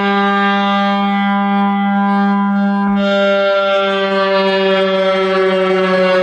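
Custom bass track playing loud on a car audio system with a Sundown ZV4 12-inch subwoofer in a ported box, heard as one steady buzzy tone with many overtones, sliding slightly lower in pitch near the end.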